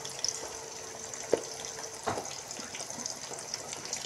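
Raw chicken leg pieces sizzling and crackling in hot oil with fried onions in a metal kadai as more pieces are set in by hand, with two sharp knocks, one a little over a second in and one about two seconds in.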